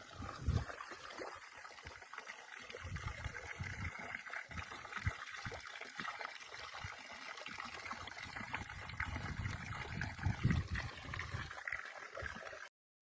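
A stream trickling and gurgling, a steady watery hiss with irregular low swells beneath it. It cuts off abruptly just before the end.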